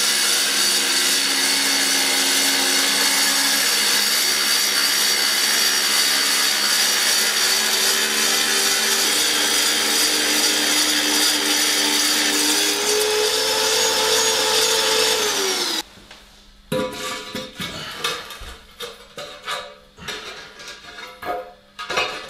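Electric power saw cutting ceramic floor tile, running steadily for about fifteen seconds; near the end its whine rises slightly, then it is switched off and winds down. After that come scattered knocks and clinks.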